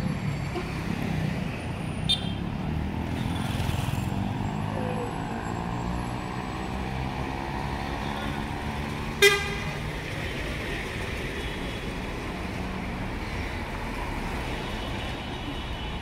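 Road traffic running steadily, with a vehicle's engine note rising and falling as it passes. A vehicle horn gives one short toot about nine seconds in, the loudest sound, and a brief high beep comes about two seconds in.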